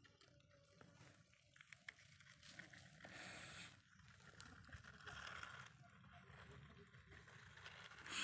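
Near silence, with faint scrapes and small ticks of die-cast toy cars being moved over sandy dirt.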